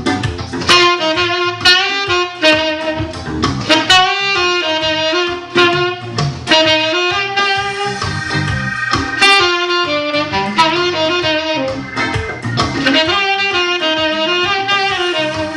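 Saxophone playing a jazzy melody line over a backing track with drums, in continuous music.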